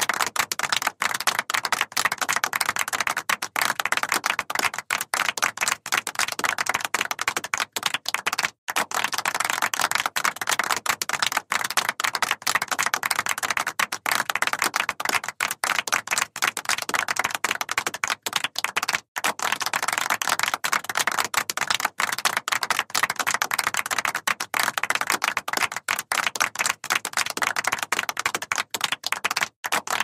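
Applause: many hands clapping steadily, the individual claps distinct, with two brief drop-outs about eight and a half and nineteen seconds in.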